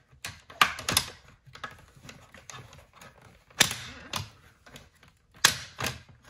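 Hard plastic clicks and knocks from a toy monster-truck stunt-dial playset being handled: the dial-mounted Dragonoid head is turned and clicks into its positions. About seven sharp clicks, some in quick pairs, spread over a few seconds.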